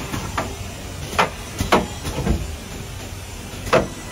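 Automatic four-corner aluminium window frame crimping machine at work: about five sharp mechanical clacks at irregular intervals from its pneumatic clamps and corner knives, over a steady machine hum.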